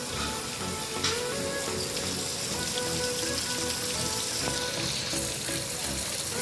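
Background music with a steady beat over an even hiss of running, splashing water.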